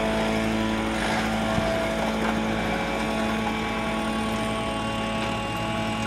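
Off-road trial 4x4's engine running at a steady speed, with a couple of light knocks.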